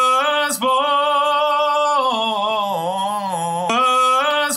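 Playback of a recorded sung vocal through a compressor with makeup gain. A held sung note drops in the middle to a lower note with vibrato, then comes back up, and the level stays even throughout. The compressor has evened out the drop in volume at the end of the phrase.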